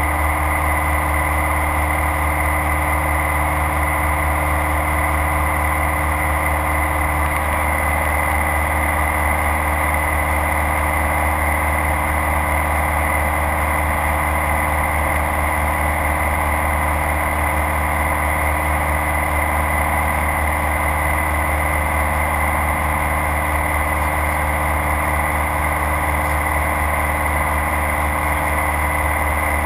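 Light aircraft's engine and propeller running steadily in level flight, a constant drone heard inside the cockpit.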